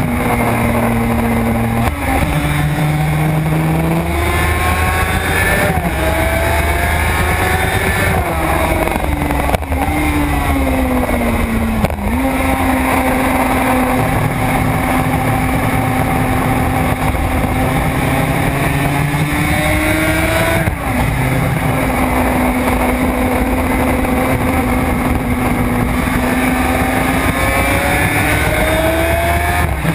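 Suzuki RG500's two-stroke square-four engine heard from the rider's seat at race pace, its pitch climbing and falling with the throttle and breaking sharply a few times at gear changes.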